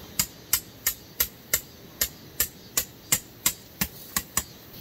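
Tent peg being hammered into gravelly ground with a peg hammer: about thirteen sharp strikes, roughly three a second, the last two coming a little quicker.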